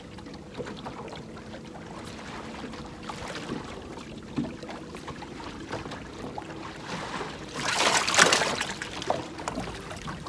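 Water lapping against a small fishing boat on a lake, under a faint steady hum and scattered small knocks. A loud rush of noise comes about eight seconds in.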